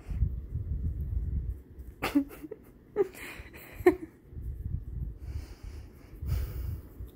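Domestic cat purring, a close, pulsing low rumble, while being scratched under the chin. The purr drops away for about two seconds in the middle, where three short sharp sounds come about a second apart, then picks up again.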